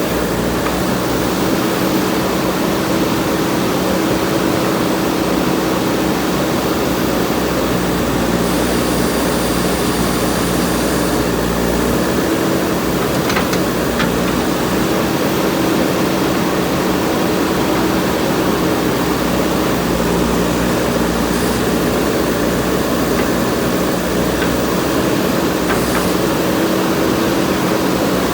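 JCB backhoe loader's diesel engine running steadily, a constant hum that holds one level throughout.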